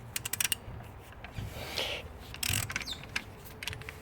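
Hand socket ratchet clicking in a quick run, then a few rasping, scraping tool-on-metal sounds as a bolt on the alternator mount is worked loose.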